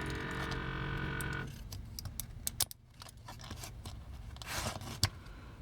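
Small sharp clicks and scrapes of a tool and hard plastic toy parts being worked and pried at, against a steady hum that stops about a second and a half in.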